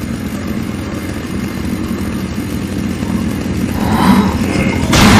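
Chainsaw engine running with a steady rattling drone that grows a little louder, broken by a sudden loud burst just before the end.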